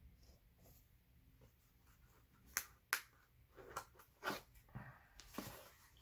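Small cardboard box being opened by hand: two sharp clicks a few seconds in as the tuck flap pops free, then short bursts of cardboard scraping and rustling as the flaps are worked open.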